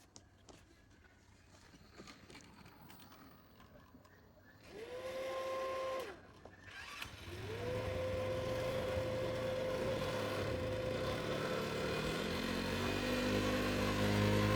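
A small electric motor, as in a power tool, spins up to a steady whine twice: a short run about five seconds in, then a longer run from about seven seconds on, with a lower hum joining near the end. Faint clicks and handling noises come before it.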